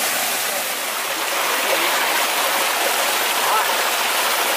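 Shallow rocky stream rushing and splashing over stones in small cascades, a steady, even rush of water close by.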